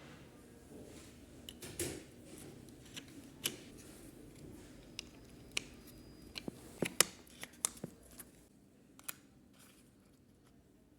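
Scattered small clicks and taps of hard plastic parts being handled, as the rewired SportIdent card with its replaceable button battery is fitted into a 3D-printed case.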